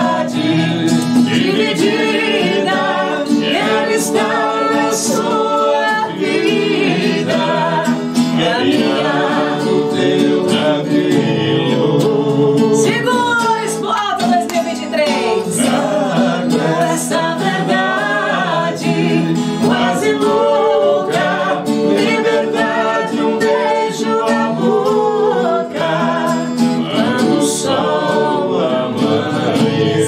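Viola caipira, the Brazilian ten-string guitar, played live: a continuous melodic solo of plucked runs over chords.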